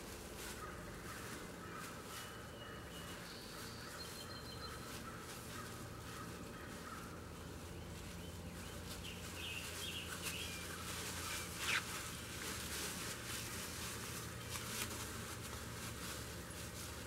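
Faint outdoor ambience with distant birds calling now and then over a low steady hum. One sharp click comes about twelve seconds in.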